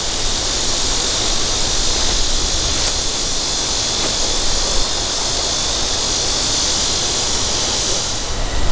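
A steady, high-pitched insect chorus droning without a break in the summer woods. It falls away suddenly near the end.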